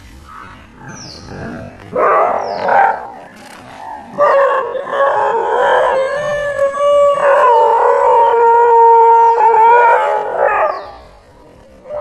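A dog howling: a short cry about two seconds in, then one long wavering howl from about four seconds in that stops a little before the end.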